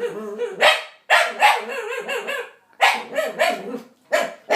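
A dog making odd, bark-like vocal noises in four separate bouts. These are the weird noises the dog makes when a child stares at him.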